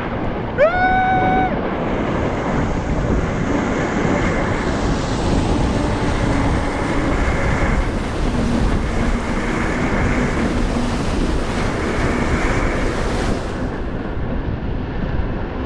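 Wind buffeting the microphone over the steady wash of surf, with a short rising whoop about half a second in. The hiss of the wind eases about two seconds before the end.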